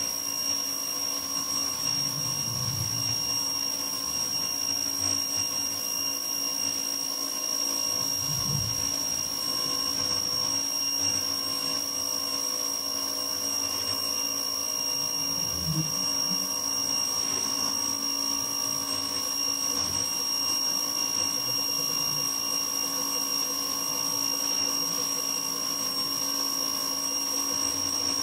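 Ryobi electric pressure washer running steadily, its motor and pump giving a constant high-pitched whine over the hiss of the water jet striking concrete.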